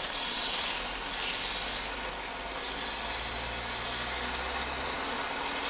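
Belt grinder running, with a curved sheet-metal piece pressed against the moving belt in repeated passes. Each pass gives a hissing grind over the steady hum of the motor as the welded piece is ground smooth.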